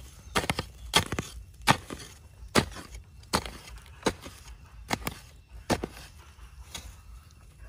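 A machete blade chopping repeatedly into dry sandy soil to dig a hole: about ten sharp strikes at a steady pace of roughly one a second, some doubled.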